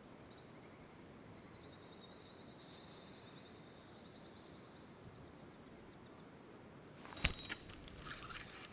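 Faint outdoor background with a thin, high-pitched trill running for about six seconds, then a sharp knock about seven seconds in followed by a little handling clatter.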